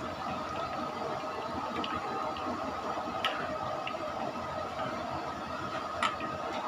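Chicken deep-frying in a large aluminium wok of hot oil, sizzling steadily. A metal ladle knocks against the wok twice, about three seconds in and again near the end.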